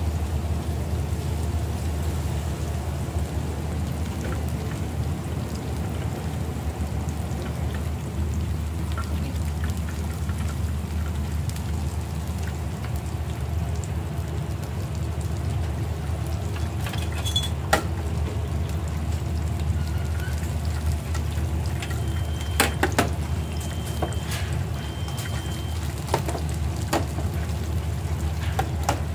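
Battered tempura deep-frying in a large commercial fryer of hot oil: a steady sizzle and bubbling with a low hum under it. In the second half come a few sharp clicks of metal tools against the fryer and a few short high tones.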